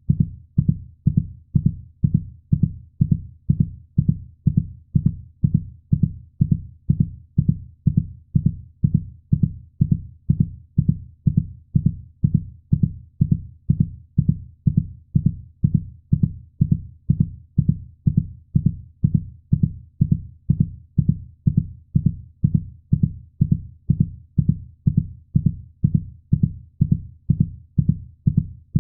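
Heartbeat sound: a steady, unchanging lub-dub rhythm of low thumps, about two and a half thumps a second.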